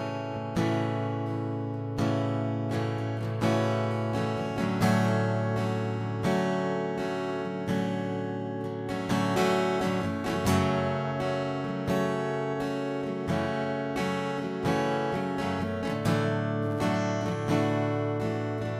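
Acoustic guitar strummed in a steady rhythm, the instrumental intro of a slow worship song before the vocals come in.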